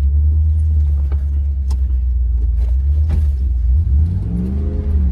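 Heavy, steady low rumble inside the cabin of an off-road vehicle driving over rough ground, with an engine pitch that rises and falls briefly near the end.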